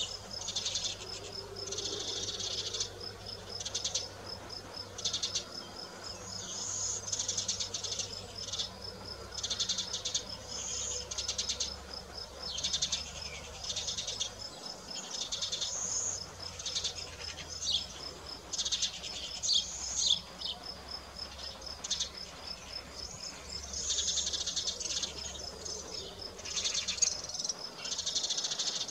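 Insects stridulating in the grass: one keeps up a steady, fast-ticking high trill, while others give repeated buzzy chirps of about a second each.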